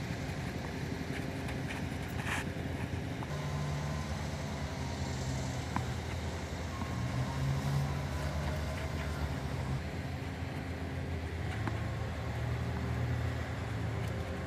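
Steady low hum with a few faint ticks now and then.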